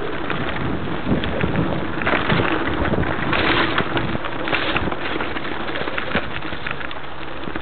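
Mountain bike riding fast down a dirt and rock forest trail: tyres rolling and crunching over the ground, with constant rattling and sharp knocks from the bike, and wind rushing over the microphone.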